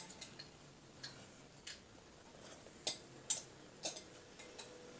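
A few faint, short clicks and ticks at irregular intervals, about seven in all, over a quiet room.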